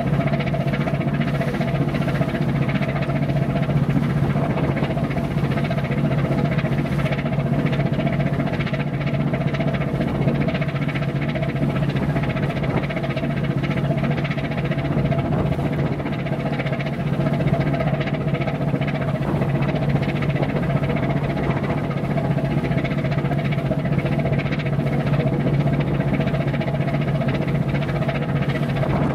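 Ship's diesel engine running steadily at cruising speed: a constant low drone with a strong unchanging hum.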